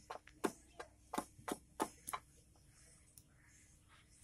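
Quick, sharp chopping strokes of a hand-held cutting tool into a wooden bed-frame rail as it is shaped by hand. About ten knocks come in the first two seconds, then they stop.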